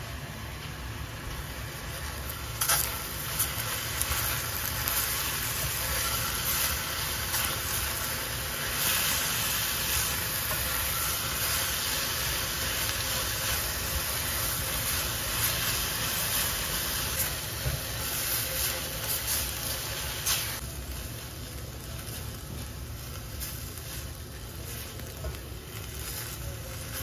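Sliced eggplant and tofu sizzling in oil in a stainless steel saucepan while a silicone spatula stirs and scrapes them, with a few sharp taps against the pan. The sizzle grows stronger a few seconds in and eases off about two-thirds of the way through, over a steady low rumble.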